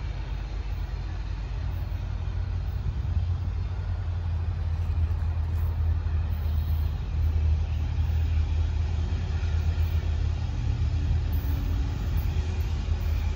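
Low, steady diesel rumble of an approaching slow freight train led by an EMD SD9043MAC and a CSX ST70AH locomotive, slowly getting louder as the train draws nearer.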